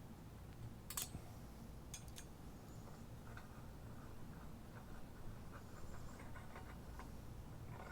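Faint clicks and light ticks of bolts and metal mount hardware being handled: two sharper clicks in the first two seconds, then a run of small ticks.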